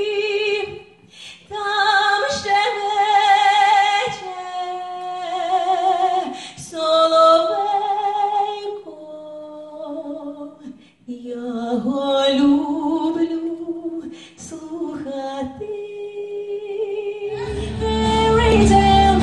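A woman singing slow phrases with vibrato, almost unaccompanied apart from a faint low held tone. Near the end a full band with heavy bass comes in loudly under her voice.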